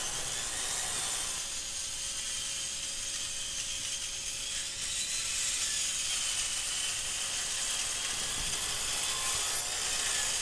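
Table saw blade ripping a length of aluminum angle lengthwise, a steady, high-pitched sound of the blade cutting through the metal.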